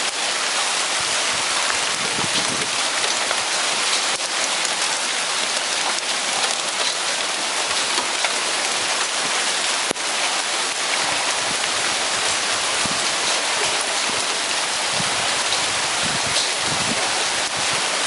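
Hail and heavy rain falling: a dense, steady hiss with scattered sharp ticks of stones striking hard surfaces.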